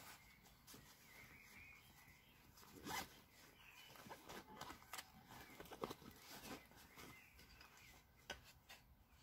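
Quiet, scattered crackling and tearing of dry onion skin being peeled by hand with a small knife, with a few sharper snaps about three and six seconds in.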